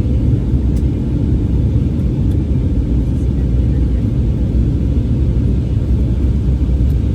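Airliner cabin noise in flight: the steady low rumble of the jet engines and the airflow over the fuselage, heard from a passenger seat.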